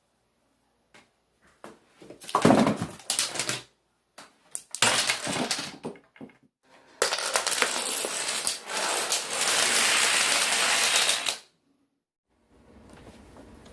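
Plastic toppling dominoes clattering against each other in three bursts, the last a steady clatter of about four seconds that cuts off suddenly.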